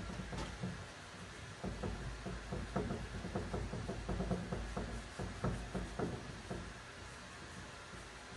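Paintbrush dabbing and brushing paint onto a wooden cupboard: a run of quick, irregular light taps that die away near the end.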